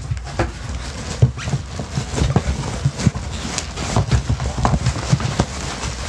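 Hands rummaging inside a cardboard box: irregular knocks, thumps and scrapes of cardboard and packing material.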